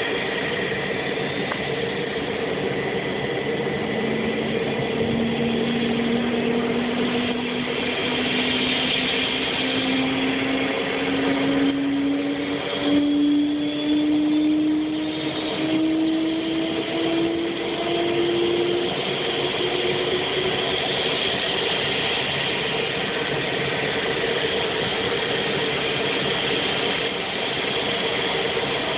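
Pratt & Whitney Canada PT6 turboprop engine of a T-34C Turbo Mentor running at ground idle, a steady hum and whine. From about four seconds in, a tone climbs slowly in pitch for some fifteen seconds, then fades.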